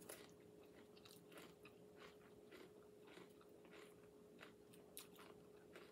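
Faint sounds of eating a tuna salad on lettuce and tomatoes: scattered soft crunches and clicks from chewing and the fork in the bowl, over a faint steady hum.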